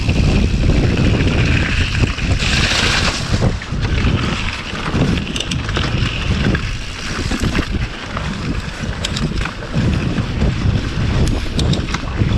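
Wind buffeting a GoPro's microphone on a moving mountain bike, a steady heavy rumble mixed with tyre and trail noise. There is a brief hiss about two and a half seconds in, and a few sharp clicks and rattles from the bike later on.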